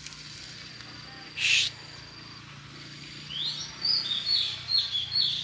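Oriental magpie-robin (kacer) singing a strange song: one short harsh note about a second and a half in, then a run of quick rising chirps in the last two seconds.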